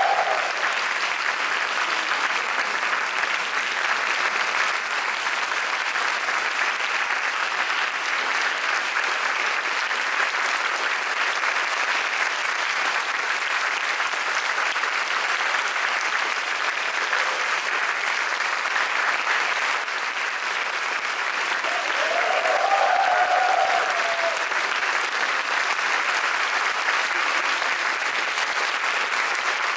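Concert-hall audience applauding steadily for a wind band at the end of a piece, with a brief cheer rising above the clapping about three quarters of the way through.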